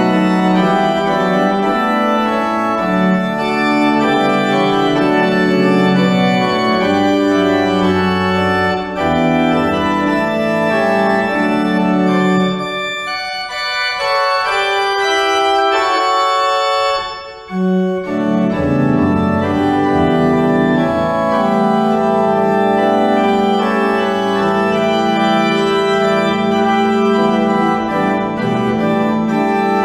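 Organ playing sustained chords over a low bass line; the bass drops out about halfway through and comes back a few seconds later.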